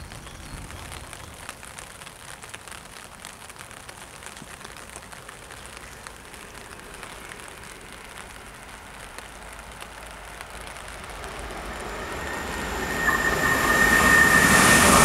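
A train approaching along the line, faint at first and then growing steadily louder from about eleven seconds in, with a high steady whine over the last couple of seconds.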